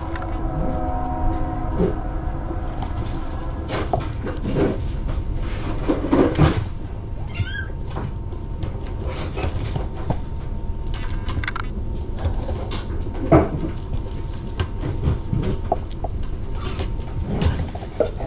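Kittens mewing a few times, one call high and wavering, among scattered knocks and scuffles as they play.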